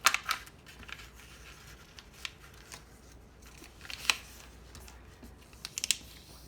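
Square of origami paper being folded and creased by hand: short crisp crackles and taps, a cluster at the start, single ones about two and four seconds in, and a quick run near the end.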